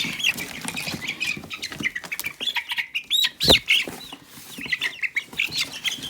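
Young chickens peeping over and over in short high calls, shut in a box they don't like being in. A thump sounds about three and a half seconds in.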